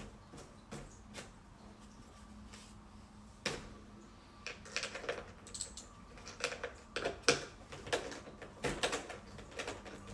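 Irregular light clicks and taps of small plastic and metal parts being handled while an RC plane's shock-absorber landing gear is put together. The clicks come sparsely at first and more often from about four seconds in.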